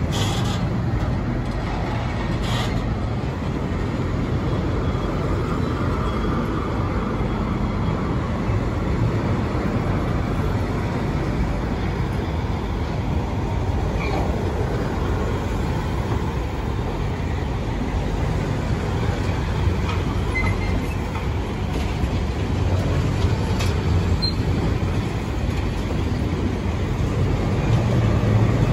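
Freight train of loaded car-carrier wagons rolling slowly through a station, a steady rumble of wheels on rail with a few sharp clicks from the wagons' wheels and couplings.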